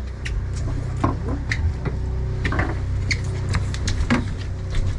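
Low steady hum of a charter boat's engine, with scattered light clicks and knocks of gear on deck.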